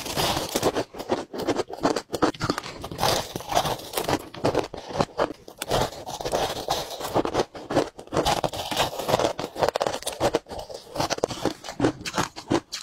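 A person biting and chewing crumbly, snow-like frozen ice: a rapid, uneven run of crisp crunches and crackles that goes on without a break.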